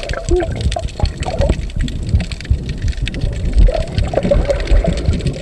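Water sloshing and gurgling around a camera held underwater, heard muffled and low, with many small irregular splashes and knocks.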